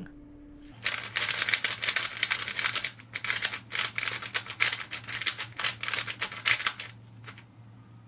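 GuoGuan YueXiao Pro M plastic 3x3 speedcube being turned fast by hand close to a microphone: a rapid run of clicking, clacking layer turns starting about a second in and lasting about six seconds, then one last click.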